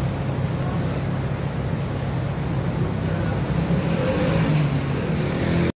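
Steady low rumble of road traffic and idling vehicles, with faint voices of people around; it cuts off abruptly near the end.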